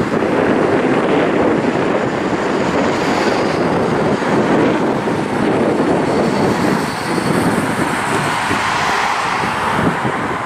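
Propeller aircraft passing overhead: a steady drone with a faint high whine, under wind buffeting the microphone.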